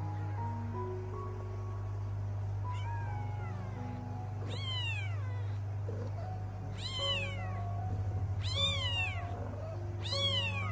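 Newborn kittens mewing: about five high-pitched cries, each rising and then falling in pitch, growing louder after the first, over soft background music.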